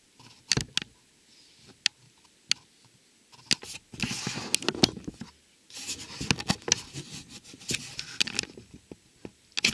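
Handling noise: a few scattered clicks and light knocks, then two stretches of scraping and rustling full of clicks, starting about three and a half seconds in and again about six seconds in, as things are shifted about by hand.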